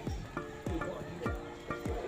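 Dance music with a kick drum beating a few times a second, each stroke falling in pitch, under sustained synth chords.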